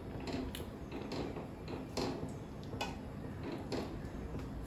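Soft, irregular clicks and taps of kitchen utensils and cookware, a few to the second at most, over a steady low hum.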